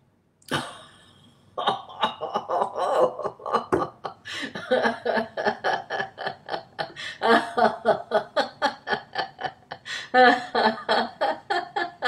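A woman laughing heartily in quick, rhythmic ha-ha bursts, deliberate laughter-yoga laughter, after a short sharp sound about half a second in.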